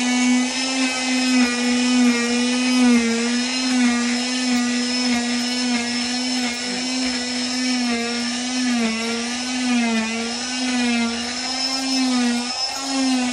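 Oscillating cast saw running with a steady whine as its blade cuts through a fiberglass leg cast. The pitch wavers slightly as the blade bears on the cast, and near the end the whine breaks into short spurts.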